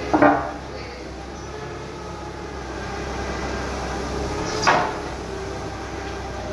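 Two short clanks while heavy machinery is being moved, one right at the start and one about four and a half seconds in, over a steady low hum.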